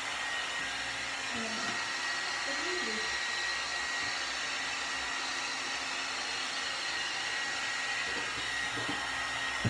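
One Step hot-air brush hair dryer and styler running steadily on its medium setting: a loud, even rush of air with a thin high whine.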